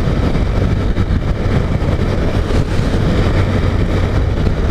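Honda CG 150 Titan's single-cylinder 150 cc engine running steadily at road speed, mixed with wind rushing over the microphone.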